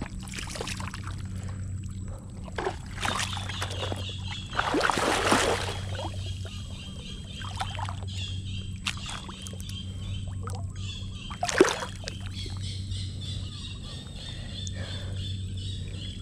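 Wading through mud and shallow water: irregular sloshing and splashing, the longest about five seconds in and a sharp splash near twelve seconds. A steady low hum runs underneath.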